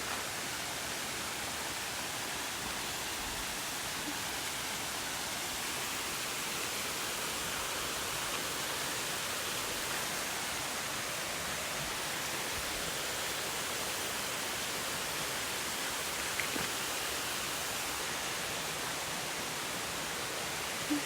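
Steady rushing of a small waterfall, running low on water after little rain.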